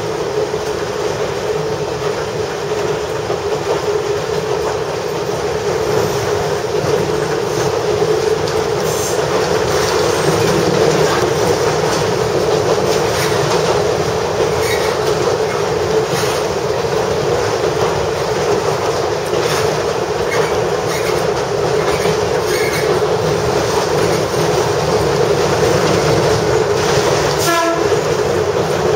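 Kominato Railway KiHa 200 diesel railcar running steadily along single track, heard from the cab: a continuous engine and wheel drone with clacking over rail joints on rough, poorly kept track. A short horn toot sounds near the end.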